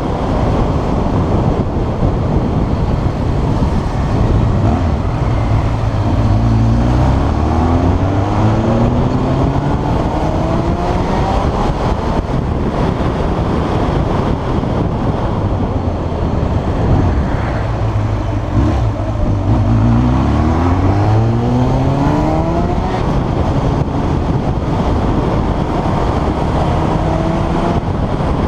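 1993 Yamaha XJ600 S Diversion's air-cooled inline-four engine running under a steady rush of noise, its revs climbing in two long pulls, one starting about five seconds in and one about seventeen seconds in.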